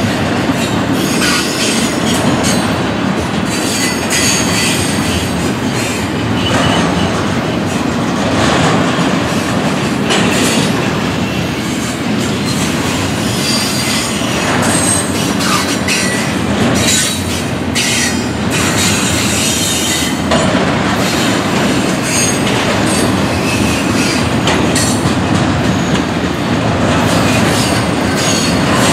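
Double-stack container well cars of a freight train rolling past: a steady, loud rumble of steel wheels on rail, broken by sharp knocks and brief high wheel squeals.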